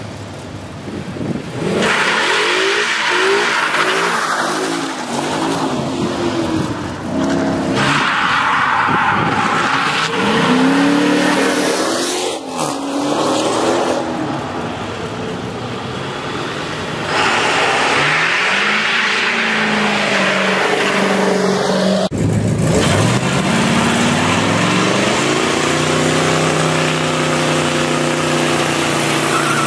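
Car engines revving hard in three bursts over the hiss of spinning tyres as cars do burnouts. Then an old Chrysler sedan's V8 climbs to high revs and holds there, its rear tyre spinning and smoking in a long burnout.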